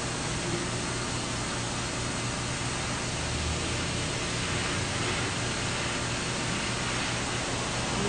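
Handheld propane torch flame hissing steadily while heating a jumper-cable terminal held in a vise.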